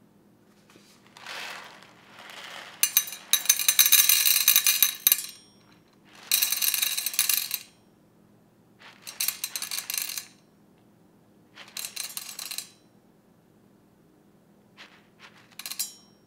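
Whole coffee beans poured into a stainless steel pitcher, rattling and clattering against the metal in about six separate pours. The longest and loudest pour is about three seconds in, and the later ones are shorter top-ups as the dose is weighed out to about 20 grams.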